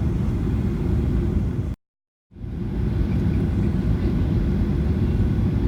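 Steady drone of an airliner cabin in flight: engine and airflow noise, mostly low. It drops out to complete silence for about half a second about two seconds in, then resumes unchanged.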